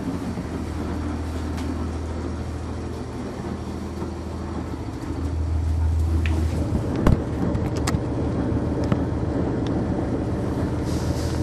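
Inside a 1999 NovaBus RTS transit bus: its Cummins ISC inline-six diesel engine runs with a steady low drone that grows louder about five seconds in. A sharp knock comes about seven seconds in, followed by a few small clicks.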